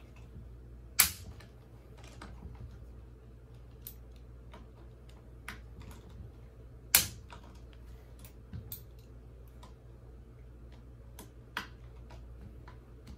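Sharp metal clicks and taps from hand tools on the scooter's handlebar stem bolts while they are loosened with an Allen key. Two loud ones about a second in and about seven seconds in, with fainter clicks scattered between.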